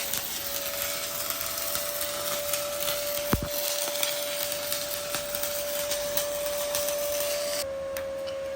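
Stick welding (SMAW) arc running a bead: a steady crackling and hissing over a steady whine, with one sharp knock about a third of the way in. The arc cuts off near the end.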